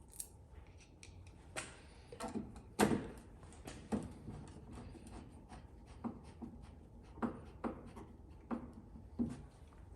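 Irregular light clicks and knocks of screws and door hardware being handled and fitted by hand, with the loudest knock about three seconds in.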